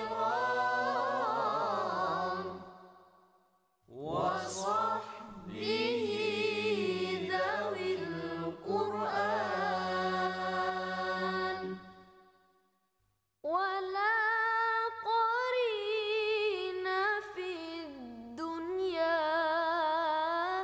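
A single voice chanting in a drawn-out, melodic recitation style, the pitch wavering and sliding, in three long phrases separated by short pauses.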